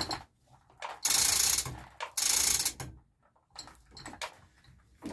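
Metal chain of an engine hoist rattling as it is worked by hand: two loud rattling pulls about a second apart, with scattered clicks and knocks around them.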